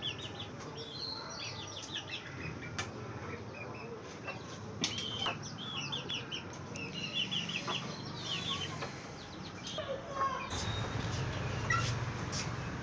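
Desi chickens clucking and calling, with many short high peeps and scattered sharp clicks.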